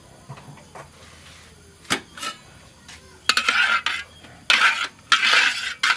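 A metal ladle knocking against a metal wok twice about two seconds in, then scraping and stirring through hot oil in four strokes of about half a second each.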